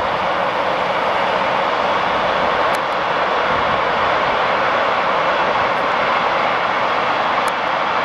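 Steady rolling noise of a long electric-hauled freight train passing, its wagons' wheels running on the rails.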